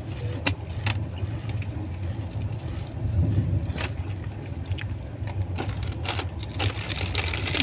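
Train running: a steady low rumble with scattered sharp clicks and rattles.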